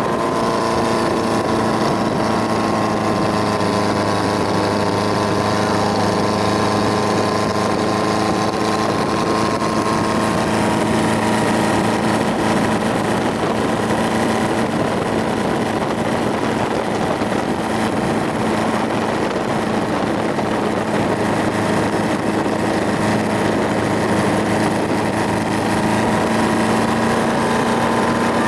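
An engine running steadily at constant speed: a droning hum with a broad rushing noise over it.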